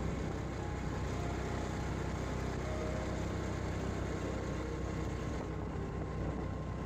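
Motorcycle running at road speed, its engine mixed with wind rumble on the microphone in a steady, unbroken roar.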